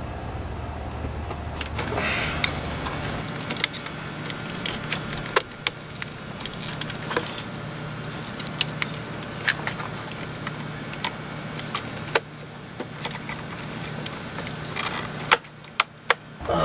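Irregular metallic clicks and clinks of hand tools and metal hardware being handled while a car battery is fitted, over a steady low hum.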